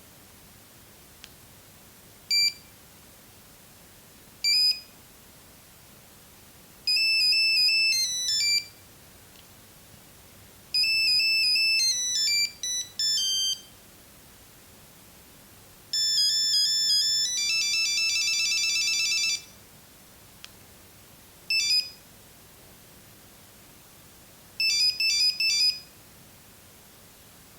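Nokia 6310 monophonic ringtones playing from the phone: a series of high, electronic beeping tunes with pauses between them. Short single beeps come first, then two longer melodic runs, a fast warbling trill about two-thirds of the way through, and a quick cluster of beeps near the end.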